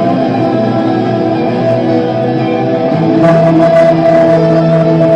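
Electric guitar playing sustained, ringing chords, moving to a new chord with a lower root and fresh picked strokes about three seconds in, a little louder.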